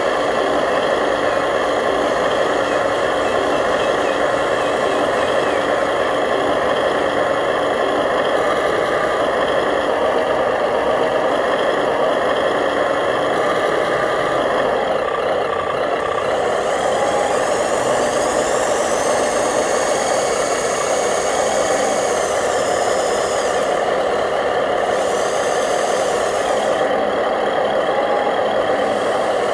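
Remote-control truck running with a steady truck-engine drone. A higher hiss with a falling whine joins it about halfway through and drops out a few seconds before the end.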